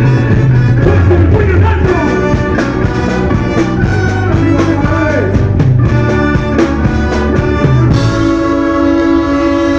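Live ska band playing with saxophone and brass over a steady driving drum beat. About eight seconds in the beat drops out and the band holds one long sustained chord.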